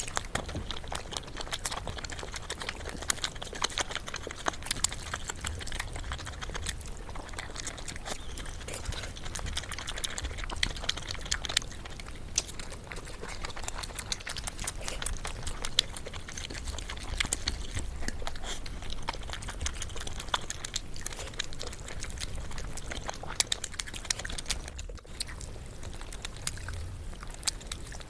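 Close-miked eating sounds: wet chewing and smacking of chicken with curry and rice, with many sharp, irregular mouth clicks and crackles.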